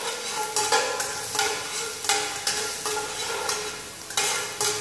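A metal wok ladle stir-frying minced garlic and ginger in oil over low heat: the ladle scrapes and knocks against the wok about twice a second, each stroke briefly ringing the metal, with the sizzle of frying underneath. The aromatics are being fried slowly to draw out their fragrance without burning.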